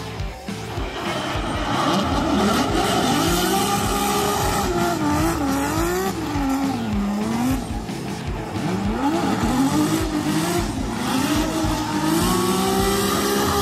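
BMW E92 drift car's engine revving hard through a drift, its pitch swinging up and down with the throttle, over the squeal of sliding tyres. The engine gets louder about two seconds in and holds high near the end.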